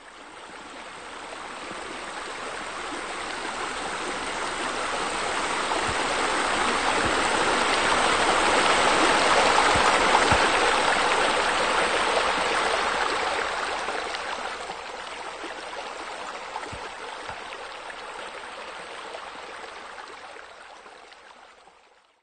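Running, splashing water like pool fountains and spillways, a steady rushing that swells to its loudest about halfway through and fades away near the end.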